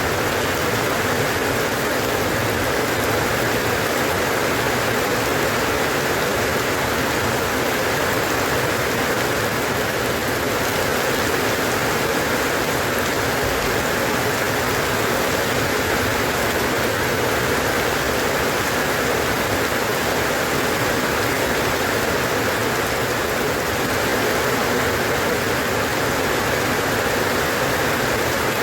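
Steady rain falling, an even hiss of drops with no breaks or changes.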